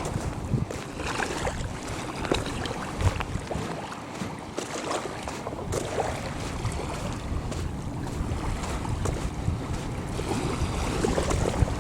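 Wind buffeting the microphone in uneven gusts over the wash of bay water.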